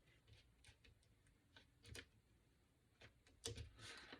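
Near silence with a few faint, scattered taps and clicks of fingers pressing a decal on transfer tape down onto a painted wooden tag, a couple slightly louder near the end.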